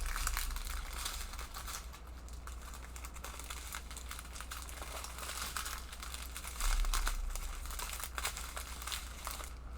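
Small plastic bags of diamond painting drills crinkling as they are handled and sorted, a continuous irregular crackle that gets louder about seven seconds in.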